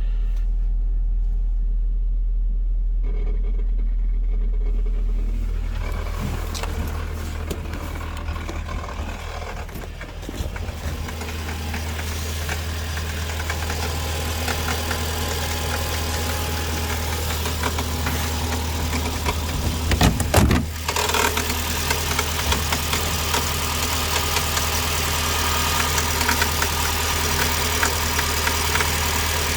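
Chery Tiggo 7 Pro idling after a cold start, with an extraneous noise that comes on when the heated windshield is switched on. About five seconds in, the low hum steps up in pitch and a crackling hiss rises in and keeps going, with a brief louder burst about twenty seconds in.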